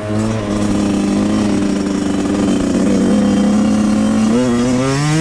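Suzuki RM 85's 85cc single-cylinder two-stroke engine running under way at fairly steady revs, then revving up sharply with rising pitch about four seconds in as the throttle is opened.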